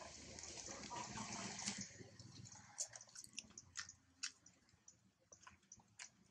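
Faint outdoor background: a steady hiss for about the first two seconds, then scattered soft clicks and ticks.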